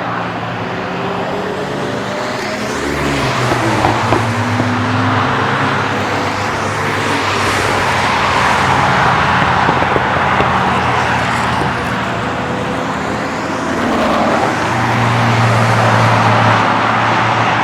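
Several cars driving past one after another, their engines revving and easing off, loudest twice: around the middle and near the end.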